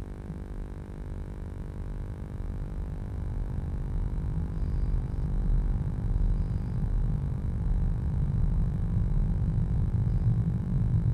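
Steady electrical hum with a low rumbling noise that grows louder over the first few seconds, picked up by a nest box camera's microphone; a few very faint high chirps.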